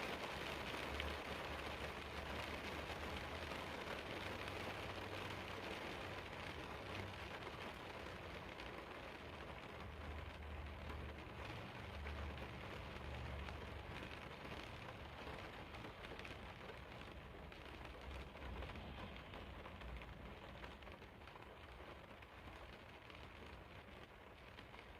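Steady rain falling, an even hiss of drops that slowly grows quieter, with a low rumble coming and going underneath.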